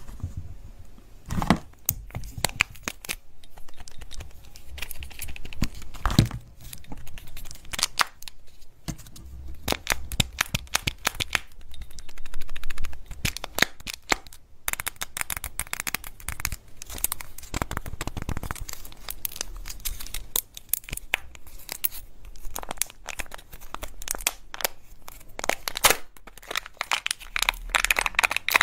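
Kinder Joy eggs being handled close to the microphone: their wrappers crinkle and tear, with many sharp clicks and taps of long fingernails on the plastic eggs and cardboard box.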